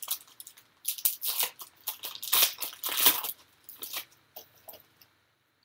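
Foil wrapper of a trading-card pack being torn open and crinkled by hand: a quick string of sharp crinkling rustles that stops near the end.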